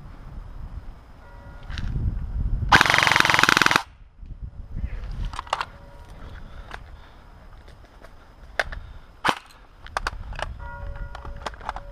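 Airsoft rifle firing a rapid full-auto burst lasting about a second, followed by a few scattered single sharp cracks.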